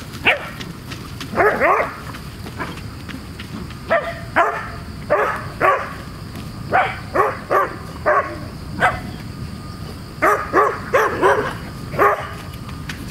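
Dog barking in quick runs of two to four sharp barks, about twenty in all: excited barking during play and chasing.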